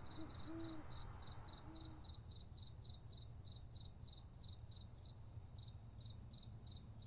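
Faint cricket chirping, a steady train of short high chirps about three a second.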